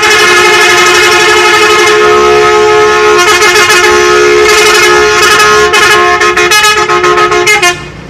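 A bus's telolet horn, the Indonesian multi-note musical air horn, blaring loudly without a break. Its notes shift partway through, and it cuts off suddenly near the end.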